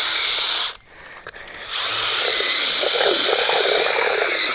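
Handheld drill with a mixing paddle churning anchoring cement in a 5-gallon bucket. It runs steadily with a motor whine, stops for about a second near the start, then runs again.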